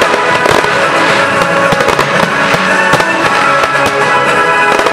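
Fireworks display with aerial shells going off in a rapid, continuous string of bangs. Film-score music plays loudly underneath, set to the show.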